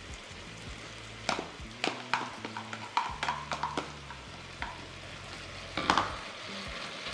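Seared meat sizzling steadily in a hot pot as chopped onion is tipped in and pushed around, with a scatter of sharp clicks and knocks, the loudest about six seconds in, over a low steady hum.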